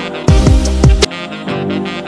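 Background music: an instrumental track with a steady beat. From about a quarter second to one second in comes a louder stretch of falling bass sweeps, which cuts off suddenly.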